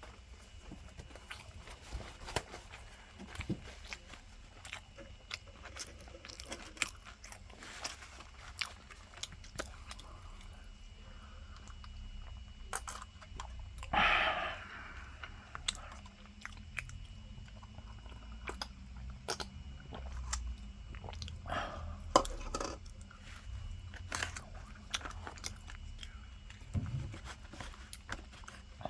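A person chewing crispy breaded fried pork cutlet (tonkatsu), with many small crunches and clicks throughout and one louder crunch about halfway through.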